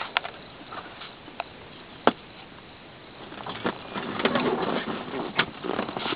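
Scattered sharp clicks and knocks with rustling handling noise, which becomes busier and louder after about three and a half seconds; the trike's engine is not running.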